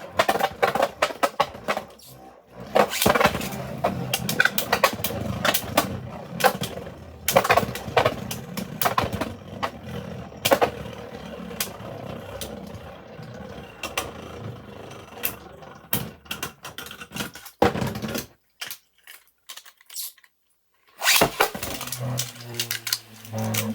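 3D-printed Beyblade spinning tops clashing in a stadium: rapid, irregular plastic clicks and clacks over the whir of the spinning tops. About three-quarters of the way through there is a short gap of near silence, then the clattering starts again.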